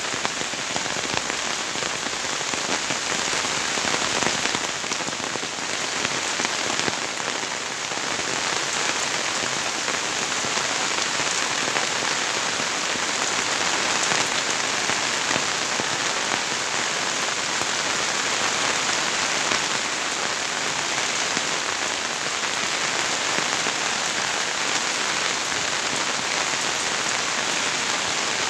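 Heavy rain falling steadily on leafy vines and foliage.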